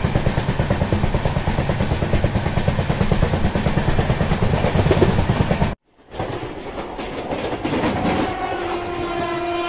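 Rumble and rattle of a train running at speed, heard from an open coach doorway, with a fast pulsing low rumble. It cuts off abruptly about six seconds in; after a brief gap, train noise resumes and a train horn sounds a steady held note from about eight and a half seconds.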